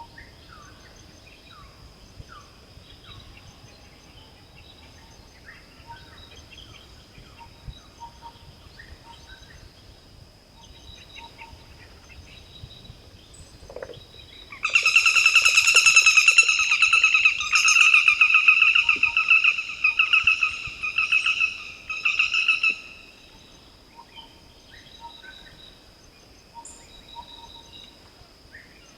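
Forest birds call softly over a steady high insect whine. About halfway in, a loud, harsh, rapidly pulsing bird call breaks out and goes on in several bursts for about eight seconds before the quieter forest sounds return.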